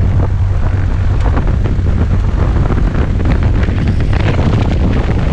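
Small single-engine plane's engine running with a steady low drone, while wind buffets the microphone in gusty flutters.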